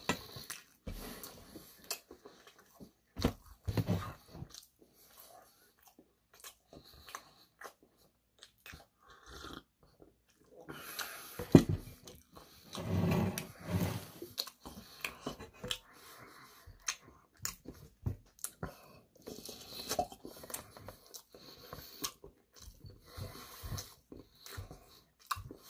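Close-miked chewing and biting of saucy fried chicken, with wet mouth noises and short clicks of a fork against a stainless steel plate. A sharp knock comes about halfway through, followed by a louder stretch of mouth sounds.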